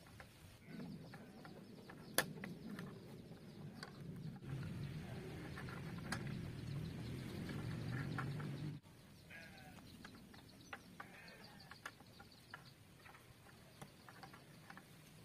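Steel rebar being bent by hand around nails on a wooden bench jig, with sharp metallic clicks and knocks, the strongest about two seconds in. A steady low rumble runs under it and cuts off suddenly about nine seconds in, after which faint bird calls are heard.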